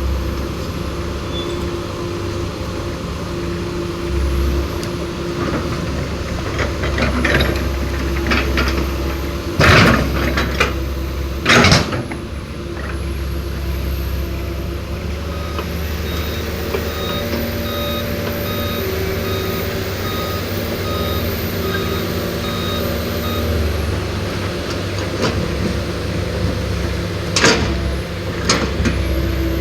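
Steady low running of heavy diesel machinery and trucks at a roadwork site. Partway through, a reversing alarm beeps about once a second for several seconds. A few sharp knocks come near the middle and again near the end.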